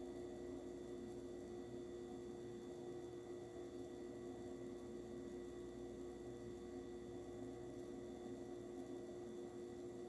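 An oven running while baking, giving a steady, even hum: one strong mid-pitched tone with a few fainter higher tones over a soft noise. Nothing in it changes.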